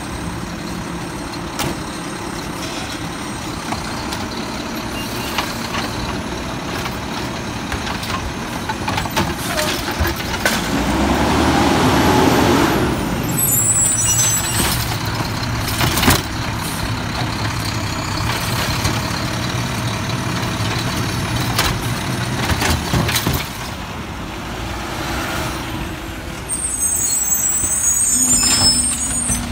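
Mack side-loader garbage truck running at the curb, with air-brake hisses and several sharp metal clanks from the truck's body. The engine picks up for a few seconds about a third of the way in.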